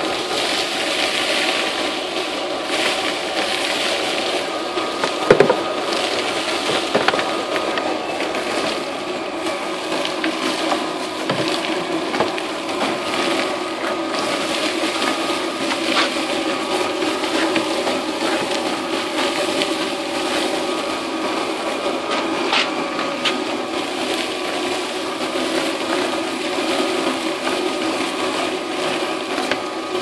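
Homemade dust collector's blower motor running steadily with a whine and hiss of rushing air, its corrugated hose sucking up wood shavings and dust from a concrete floor. Scattered sharp clicks and rattles come as bits are drawn up the hose, the loudest about five and seven seconds in.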